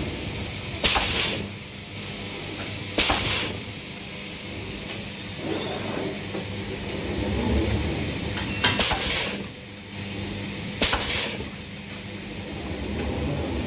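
Pneumatic eyelet-setting heads of an automated tarpaulin eyeleting machine punching grommets into PVC sheet: four strokes, two pairs about two seconds apart, each a sharp metallic clank followed by a short hiss of air. A steady low machine hum runs underneath.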